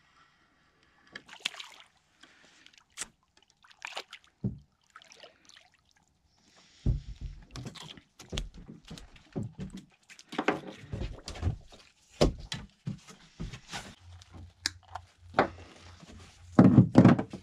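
Irregular thumps and knocks from a dogfish being lifted aboard a small fibreglass boat and handled on the deck. A few sharp clicks come first, then the knocks grow dense from about seven seconds in and are loudest near the end.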